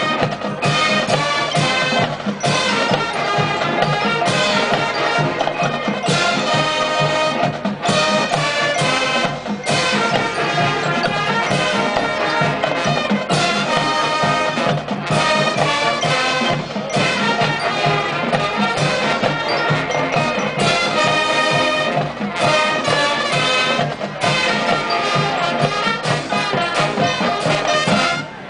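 High school marching band playing a loud, punchy brass-led arrangement with woodwinds and drums, the full band hitting rhythmic accents with short breaks between phrases. The music cuts off sharply right at the end.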